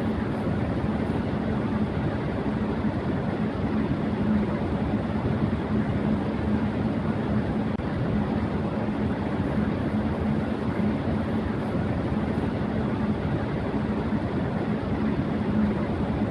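Electric fan running at high speed: a steady rush of moving air with a steady hum under it.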